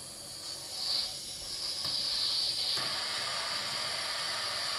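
Recorded steam-locomotive hiss played by an ESU sound decoder through a small loudspeaker in a stacked plastic sound enclosure. The hiss swells briefly about a second in, then runs on steadily from about two seconds.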